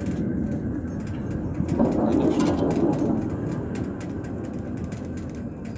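Cable car cabin running along its cable, a low rumbling noise that swells about two seconds in and then slowly fades.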